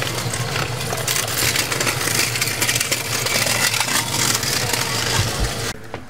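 A motor vehicle engine idling, with a steady low hum under a loud crackling rattle, cutting off suddenly near the end.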